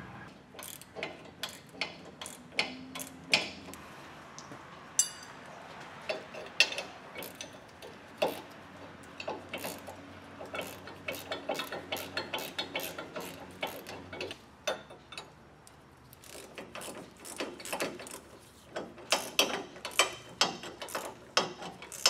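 Hand ratchet clicking in short runs of quick ratchet clicks, with scattered single clicks and light metal knocks, as sway bar end link nuts are run down nearly tight.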